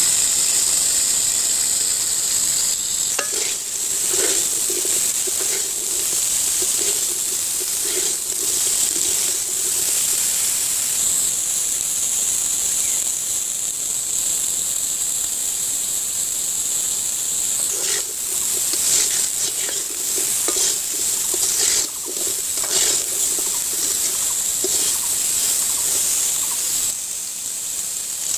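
Steady sizzling hiss from freshly washed, still-wet drumstick (moringa pod) pieces in a hot metal wok, with a few short clicks and knocks from the pieces against the pan.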